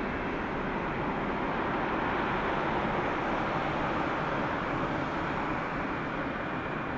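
Jet engine noise from the Airbus A380's four engines at high thrust during departure: a steady rushing sound that swells slightly a few seconds in and eases a little toward the end.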